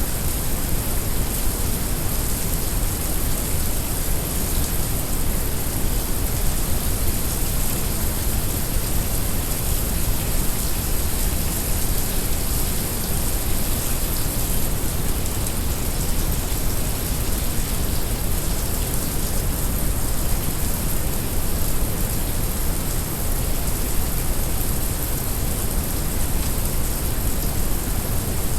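Heavy rain mixed with brown noise: a steady, even hiss of rain over a deep, constant rush of low noise.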